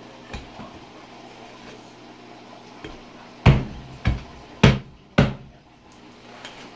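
Meat cleaver chopping into a pig's head on a plastic cutting board: a light knock near the start, then four heavy chops about half a second apart beginning around halfway through.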